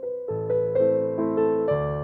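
Background music: a gentle keyboard melody, its notes struck one after another over low held bass notes.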